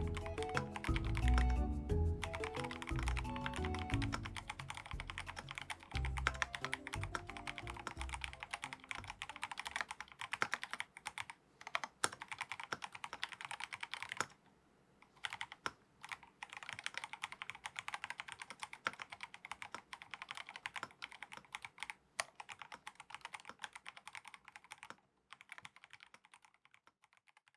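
Fast, continuous typing on the MelGeek Pixel mechanical keyboard: a dense run of key clicks with a few short pauses. Background music fades out over the first several seconds.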